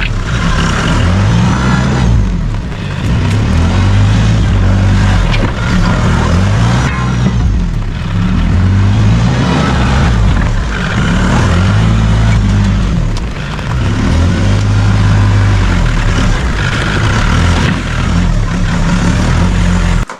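Background music with a heavy bass line stepping between notes, cutting off abruptly at the end.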